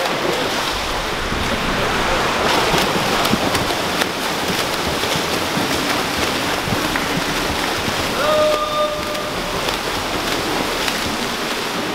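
Swimmers sprinting freestyle: steady splashing and churning water from their strokes. A short held voice call sounds about eight seconds in.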